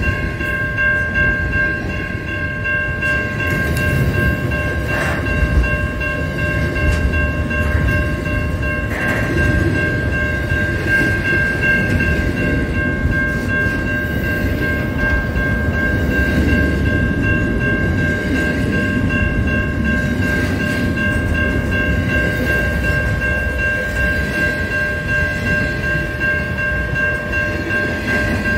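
A container freight train rolling past, its wagons giving a steady low rumble with occasional knocks from the wheels, while the level crossing warning bell rings on at a steady pitch the whole time.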